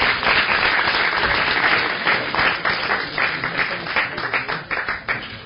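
Audience applauding, a dense patter of many hands clapping that thins into scattered claps and dies away near the end.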